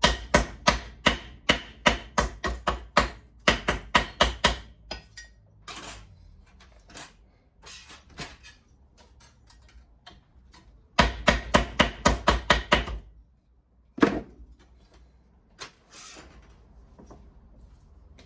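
Hammer tapping a cut-out steel body panel flat: quick runs of sharp metal blows, about four a second, a few scattered taps, another run in the middle, and a single hard blow shortly after.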